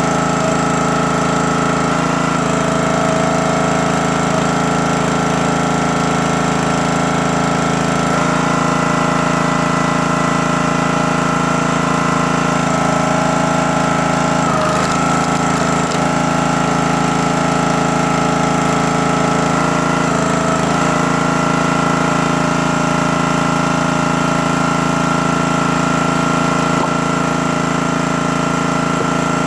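Small gas engine of a 28-ton log splitter running steadily, with a constant high whine over the engine hum; its tone shifts a few times, about every six seconds.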